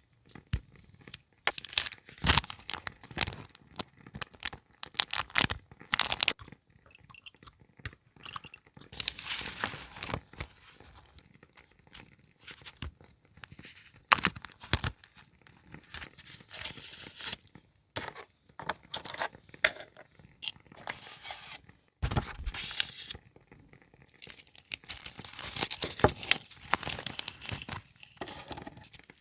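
Paper being handled close up: tearing, rustling and crinkling in short irregular bursts, with scattered small clicks and taps.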